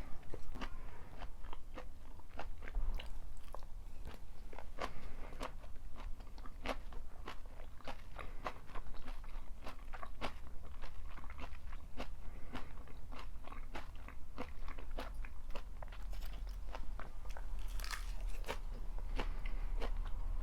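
Close-up chewing of a pork and napa cabbage stir-fry: a steady run of crisp, wet crunches, several a second, as the cabbage is bitten and chewed.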